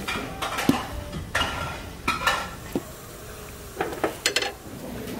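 A ladle scooping boiled pork offal out of a large metal pot and into a small bowl, with a string of short clinks, knocks and scrapes against the pot and the bowl.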